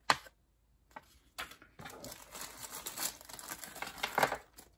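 Clear plastic resealable bag crinkling as it is handled and opened by hand to get at resin model parts, after a single sharp tap at the start.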